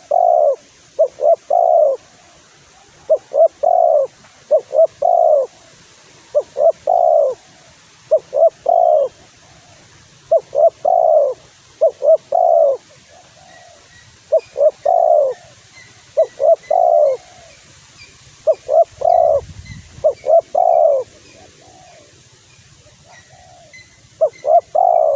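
Spotted dove (tekukur) cooing over and over: two short notes followed by a longer one, the phrase repeating every second or two. This is a lure call meant to provoke rival doves.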